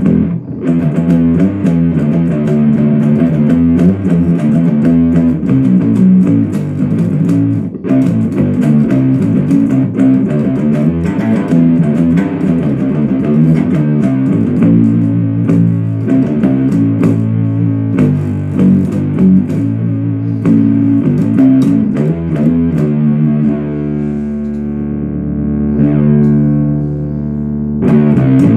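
Short-scale bass guitar played through a 77 Fuzz Blender, a Big Muff-style fuzz pedal, into an Orange Super Crush 100 amp: a fuzzed, big doomy riff of low sustained notes. There is a brief break about eight seconds in, and a long held note rings out near the end.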